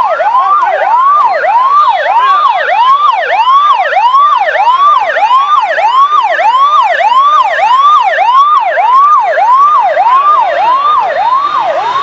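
Ambulance siren in a fast yelp, its pitch sweeping up and down about twice a second.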